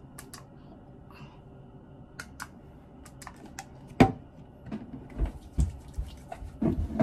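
Scattered light clicks and taps from a pump bottle of hand sanitizer being pressed and hands being rubbed together, with one sharp knock about four seconds in and a few soft thumps after it.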